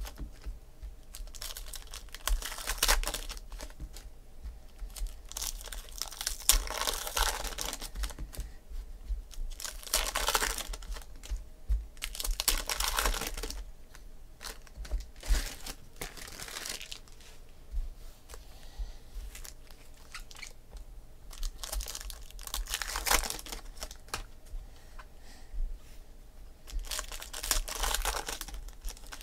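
Foil wrappers of SP Authentic baseball card packs being torn open and crinkled in the hands, in short bursts every few seconds.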